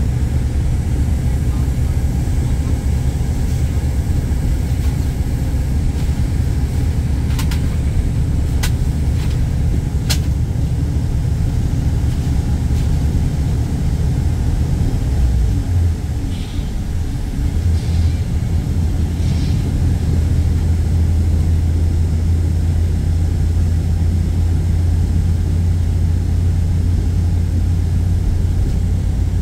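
Steady low rumble of engine and road noise inside a moving vehicle's cabin. A few faint clicks come a third of the way in, and the low drone changes briefly about halfway through, then settles again.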